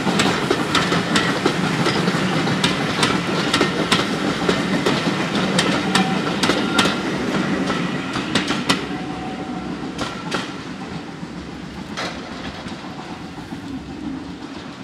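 Passenger coaches of a departing train rolling past, their wheels clicking over the rail joints in quick succession. The clicks thin out about nine seconds in as the last coach passes, leaving a few single clicks and a fading rumble as the train draws away.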